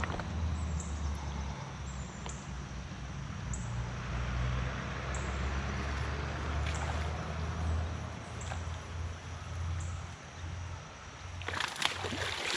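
Creek water running as a steady hiss under a low rumble. Near the end comes a short burst of louder, crackly noise.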